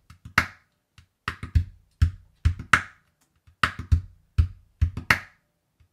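Calabash (large dried gourd drum) played with the heel of the palm: a rhythmic pattern of soft, clean, deep kick-drum-like thuds, some strokes with a brighter, sharper attack. This is the softer alternative to the fist-played bass stroke.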